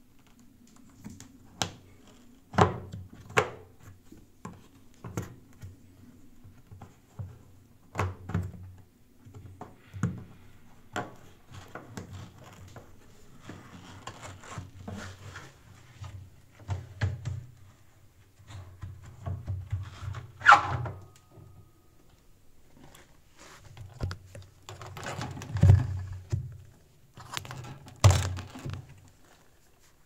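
Screwdriver prying and scraping at a washing machine's rubber door seal and its wire spring clamp, with irregular knocks, clicks and clunks against the plastic and metal of the drum front. About two-thirds of the way through comes one sharp metallic clink with a brief ring.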